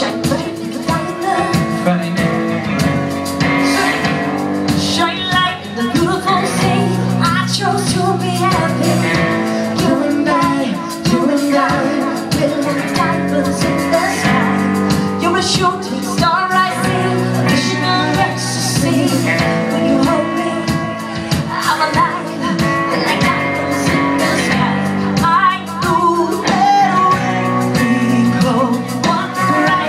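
Live band performing: a woman singing lead over electric guitar and a drum kit, with no break.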